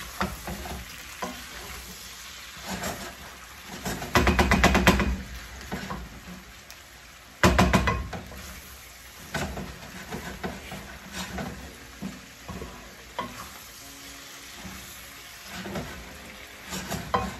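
Shrimp frying and sizzling in a non-stick pan while a wooden spatula stirs and scrapes them. There are two louder bursts of scraping and stirring, about four and seven and a half seconds in, with scattered clicks of the spatula against the pan between them.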